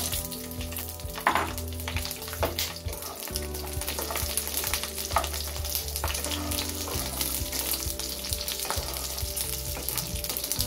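Slit green chillies frying in hot oil in a nonstick kadhai: a steady sizzle with scattered sharp crackles, while a wooden spatula stirs them. The gas is kept low to stop the chillies crackling too much.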